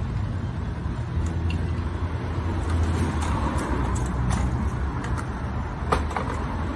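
Street traffic: a motor vehicle's engine rumbling past, loudest about three seconds in, with a few faint clicks.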